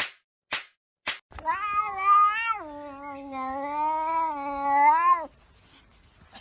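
Three sharp slaps or taps about half a second apart, then a cat's long, drawn-out yowl of about four seconds that drops in pitch partway through.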